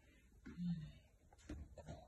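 A short, low hum from a person's voice about half a second in, followed by faint footsteps and handling rustle as the phone is carried into the bathroom.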